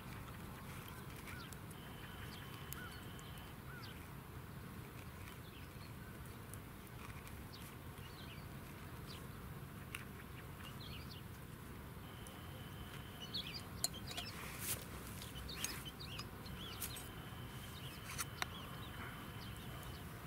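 Faint outdoor ambience of birds calling, with many short chirps and a few held whistles, over a steady low background hiss. A run of light clicks and taps comes in the second half.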